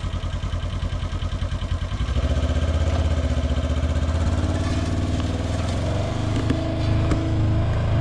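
Polaris Ranger XP UTV engine running under way while towing a disc harrow, its note getting louder and higher about two seconds in as it accelerates.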